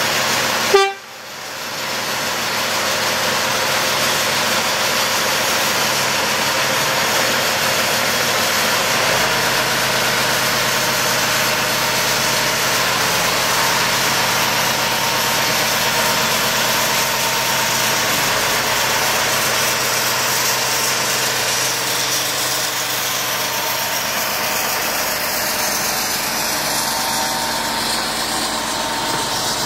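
Diesel locomotive engine running steadily, after a short loud sound about a second in.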